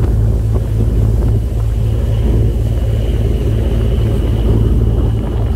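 Passenger ferry's engines running with a steady low throbbing drone, over the rush of the churned-up wake. A faint thin high whine sounds for a few seconds in the middle.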